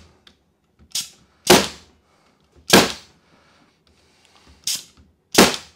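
A pneumatic air stapler firing staples through the wooden top bars of beehive frames into the end bars. It gives sharp shots about a second apart, three loud and two lighter.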